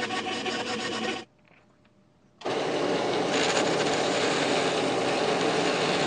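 Bandsaw cutting a small wooden part, a rasping noise with a fast even pulse, stops a little over a second in. After a short silence a belt sander runs steadily, sanding the part.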